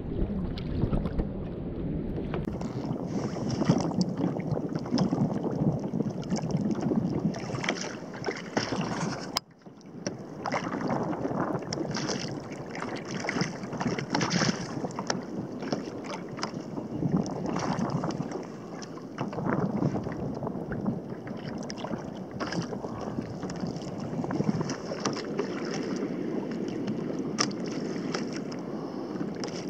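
Wind buffeting the microphone and small waves slapping and splashing against a fishing kayak's hull on choppy sea, with a brief dropout about a third of the way in.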